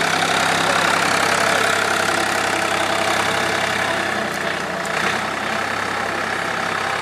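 Ford 260C tractor-loader's engine running steadily.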